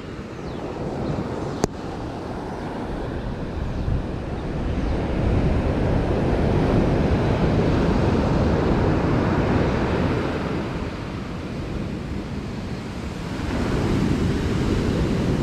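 Ocean surf washing on the shore, swelling louder about five seconds in and again near the end, with wind buffeting the microphone. A single sharp click comes about a second and a half in.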